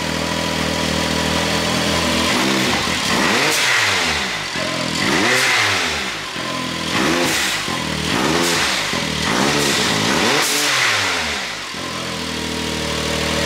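Can-Am Maverick X3's turbocharged three-cylinder engine idling, then revved about six times in quick blips, each rise and fall in pitch topped by a hiss, before settling back to idle. It is running on a freshly fitted aftermarket intake and new fuel rail.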